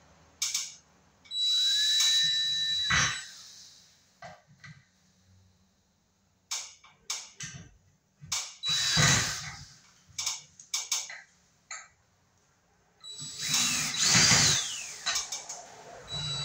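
Power drill driving a screw up into a ceiling beam: the motor winds up and runs for about two seconds, then comes in a string of short bursts, and runs longer again near the end.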